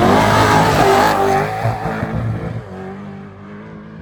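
An off-road race vehicle's engine revving hard as it passes close by, its pitch rising and falling, then fading away over the next couple of seconds.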